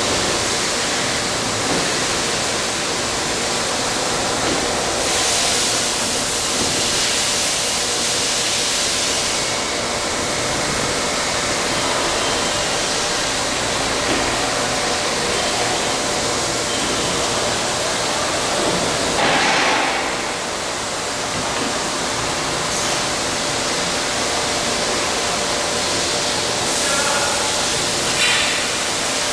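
Steady machine noise of a CNC tube bending machine at work, a continuous hiss with a faint hum, with a few short louder hissing stretches, about five seconds in, at about twenty seconds and near the end.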